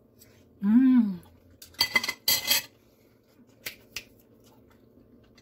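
A short hummed "mmm" of enjoyment, its pitch rising then falling, while eating a mouthful of chicken pot pie. Then a fork and knife clink and scrape on a ceramic plate for about a second, followed by two light clicks as the cutlery is laid on the plate.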